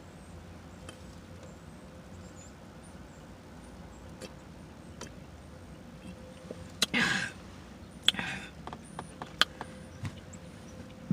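A person drinking Pepsi. Mostly quiet, then two short, loud, breathy mouth sounds about seven and eight seconds in, with a few small mouth clicks after them.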